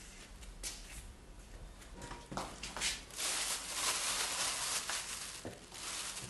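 Kitchen handling sounds as food is plated: scattered knocks and clinks of dishes, with a stretch of hissing lasting nearly two seconds from about three seconds in.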